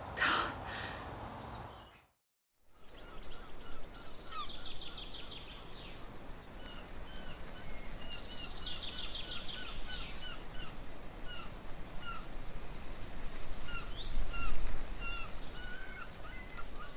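Songbirds singing in the open air: a short chirp repeated over and over, with bursts of fast, high trilling every few seconds, over a steady outdoor background. A brief low rumble comes about two-thirds of the way through.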